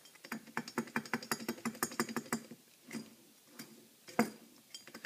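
Worn wheel hub bearing from a 2001 Volkswagen Jetta clicking rapidly off the car, about ten ticks a second for roughly two seconds, then a few scattered clicks. The bearing is loose and shot.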